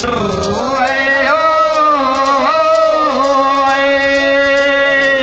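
Maxakali ritual chanting: one long sung note held for about five seconds. The pitch rises at the start and wavers briefly midway.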